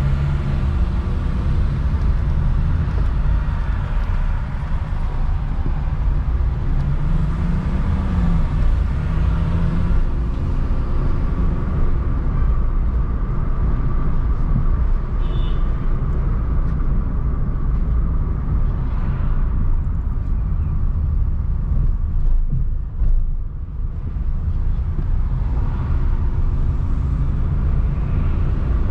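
Car driving on city streets: steady low engine and road rumble, with the engine pitch rising and falling a couple of times in the first ten seconds.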